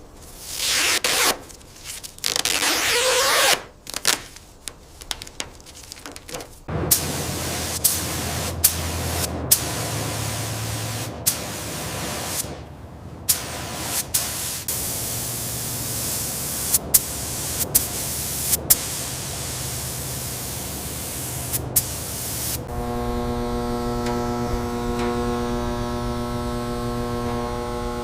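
Short bursts of spraying hiss, then a steadier hiss broken by many sharp clicks. Near the end it gives way to a steady hum of several tones.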